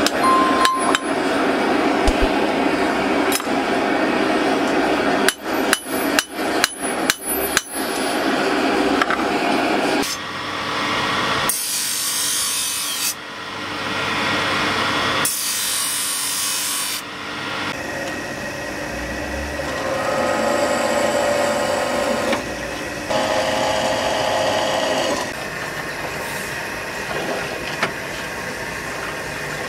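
Hand hammer forging red-hot steel on an anvil, a quick run of metal blows over the first third. Then a belt grinder grinding a steel knife blade in two long passes, followed by a bench drill press motor running steadily as it drills.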